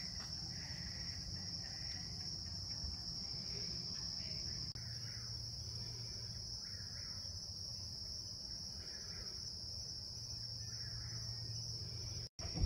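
Night crickets chirping in a steady, unbroken high chorus over a low hum. The sound cuts out for an instant near the end.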